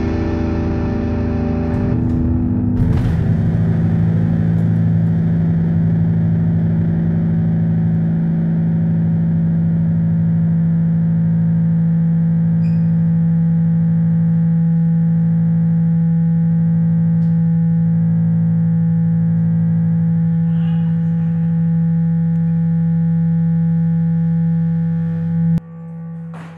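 The band's last chord and cymbals stop about three seconds in. They leave a loud, steady, distorted drone from the amplifiers held on one low note, which cuts off suddenly near the end.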